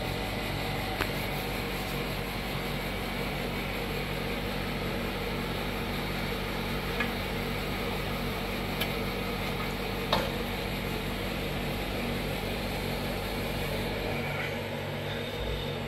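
Steady motor hum and hiss, with a few light clicks as an aluminium panel is set down and pressed onto a vacuum fixture's locating pins, the loudest about ten seconds in. The hum shifts slightly near the end.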